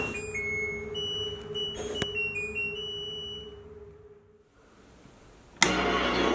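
Front-load washing machine playing its end-of-cycle tune: a short run of high beeps stepping up and down in pitch over a steady hum, signalling the wash is finished, then fading away. Near the end a sharp click, and loud music starts.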